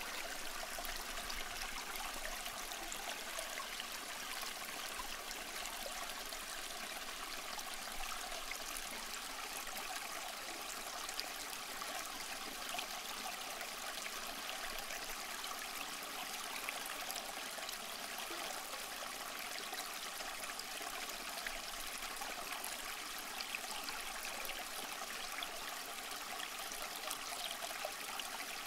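Steady rushing and trickling of flowing stream water, without a break or change.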